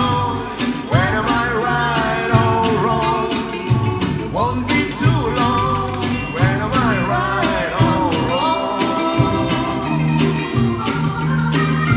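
Live band playing a reggae song: acoustic and electric guitars, electric bass, cajón and stage keyboard, on a steady beat. A melody line slides and wavers over the top, with no words.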